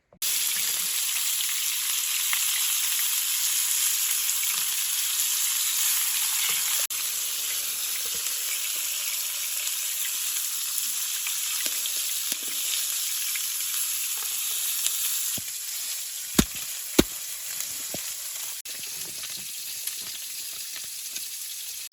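Food sizzling in a frying pan, a steady crackling hiss. Two sharp clicks come about three-quarters of the way through, likely a utensil against the pan.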